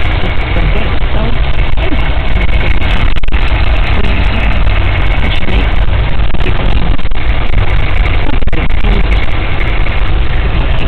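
Hummer engine and road noise heard from inside the cab while driving: a loud, steady rumble.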